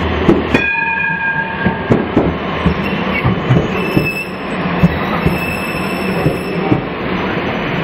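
Combino low-floor tram passing close by, its wheels knocking and clicking over the rails. A brief held ringing tone comes about half a second in and lasts about a second.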